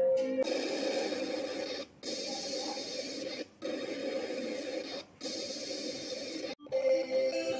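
Harsh static noise effect standing for a glitch or error. It breaks off briefly three times, about every one and a half seconds, and cuts off near the end as a plucked tune comes back in.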